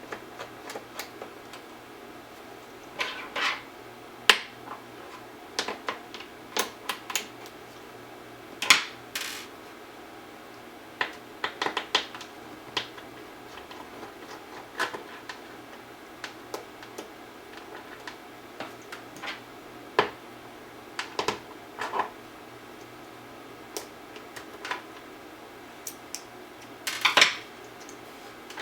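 Scattered small metallic clicks and clinks of a screwdriver and screws being worked out of a 2011 iMac's display mounting, with a few louder clatters among them.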